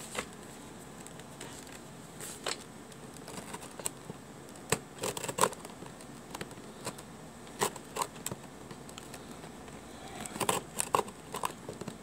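Cardboard keyboard box being handled and worked open: irregular scrapes, rustles and taps of the cardboard and its paper tape, with a quick run of sharper clicks near the end.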